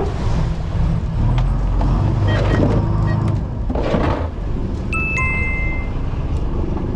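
Fishing boat's engine running with a steady low hum. About five seconds in, a two-note electronic chime sounds: a short higher note, then a lower one held for nearly a second.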